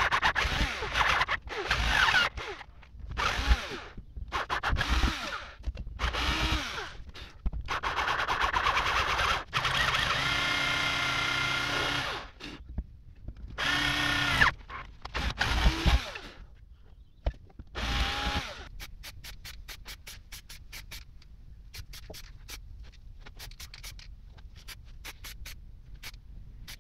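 Power drill with a 5 mm bit boring out holes in a cast metal water-pump housing, in a string of short runs with one longer steady run of a few seconds near the middle; the motor whine rises and falls as it starts and stops. After that comes a faint, regular ticking, two or three a second.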